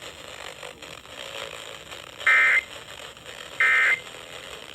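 Two short Emergency Alert System (SAME) data bursts, a little over a second apart, over faint radio static: the end-of-message codes that close a broadcast weather alert.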